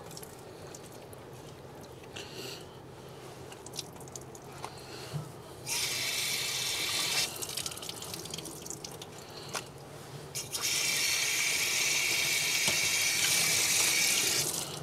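Faucet water running and splashing over hands and a small cup of fish pieces being rinsed at a fish-cleaning sink. It comes in two spells, briefly about six seconds in and then longer from about eleven seconds until near the end, with small clicks and drips between.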